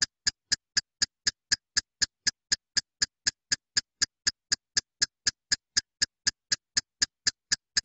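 Countdown-timer sound effect: a sharp, bright electronic tick repeating evenly at about four ticks a second, with silence between the ticks.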